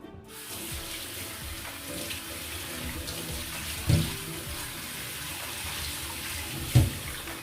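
Kitchen tap running steadily into a sink, with two knocks about four and nearly seven seconds in, the second the louder.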